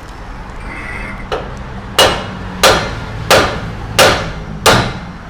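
Steel hammer blows knocking loose the upper control-arm ball joint of a Toyota Hilux Vigo: one light tap, then about five hard, evenly spaced strikes, roughly one every two-thirds of a second, each ringing briefly.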